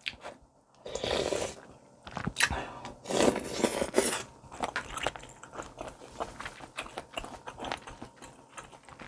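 Close-miked eating of spicy sundae gukbap: two long slurps, about a second in and again around three to four seconds in, with chewing, small smacks and clicks between and after them.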